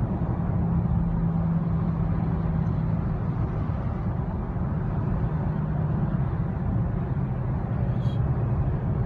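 A moving car's engine and road noise heard inside its cabin: a steady low drone with a hum that drops slightly in pitch partway through.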